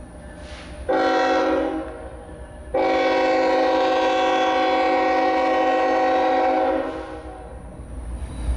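Freight diesel locomotive's multi-chime air horn blowing a short blast, then a long held one, the last two blasts of the grade-crossing signal. Low engine rumble runs beneath and swells near the end.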